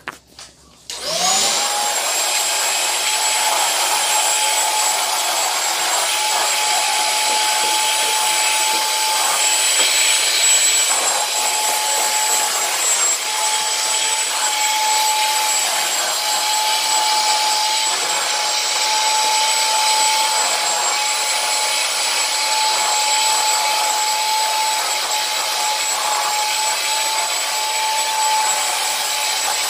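Commercial HEPA vacuum cleaner switching on about a second in, its motor whining up to speed, then running steadily with a high whine over a rushing hiss as it vacuums carpet.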